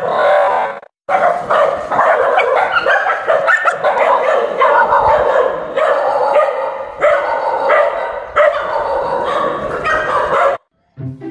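Dogs barking and yelping in alarm at a stuffed toy tiger being pulled toward them. The sound breaks off briefly about a second in and again just before the end.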